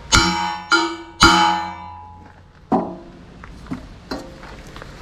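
Hammer blows on a tacked 1/2-inch steel plate on a steel I-beam, each ringing out with a metallic tone. There are three hard strikes in the first second and a half, then a few lighter taps. The plate is being tapped over to bring it square.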